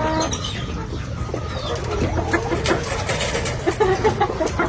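Chickens clucking and calling in short bursts over a steady low rumble.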